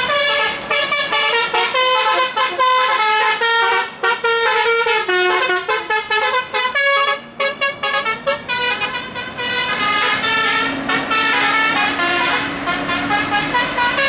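Tour bus telolet horn of the multi-trumpet Basuri type, playing a quick melody of short notes that jump in pitch, with a couple of brief breaks. A low steady tone runs under the last few seconds.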